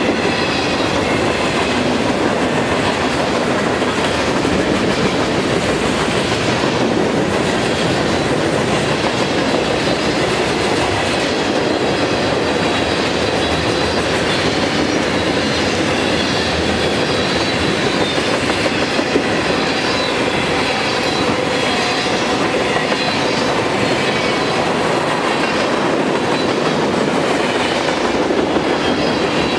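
Freight train cars, mostly tank cars, rolling past close by at steady speed: a continuous rumble of steel wheels on rail with clickety-clack over the rail joints, and at times a faint high wheel squeal.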